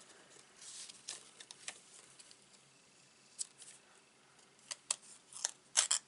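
Small sharp clicks and crackles of cardstock and sticky adhesive being handled and picked at with a metal crafting tool, sparse at first and bunching into several louder snaps near the end.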